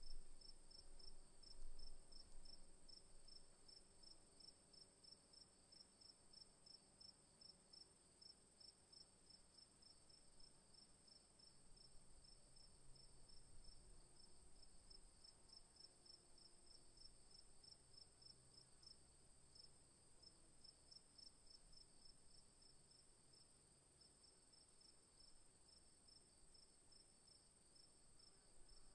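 Crickets calling faintly: one steady high trill and, below it, a second cricket chirping in even pulses, a few a second. There are two brief low bumps in the first couple of seconds.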